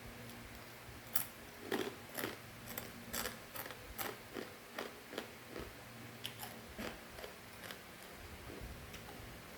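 Mouth crunching and chewing crispy fried macaroni snack: sharp crackly bites about two a second that grow fainter towards the end.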